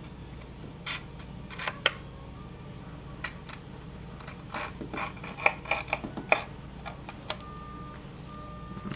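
X-Acto hobby knife scraping and clicking against painter's tape and the hard plastic of a 3D-printed helmet as the tape is cut along a seam. The small clicks come in scattered groups, thickest about halfway through, over a low steady hum.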